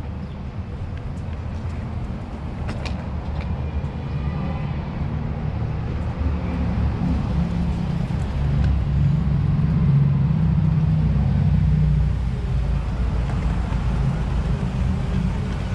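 A low, rough outdoor rumble that keeps rising and falling and is loudest about eight to twelve seconds in, with a few faint clicks near the start.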